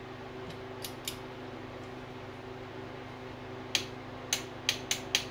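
Click-type torque wrench on the camshaft sprocket bolts of a Chevy 350 small-block V8. There are two faint clicks about a second in, then a quick, uneven run of sharp metallic clicks near the end. The wrench's click signals that the bolt has reached its set torque. A steady low hum runs underneath.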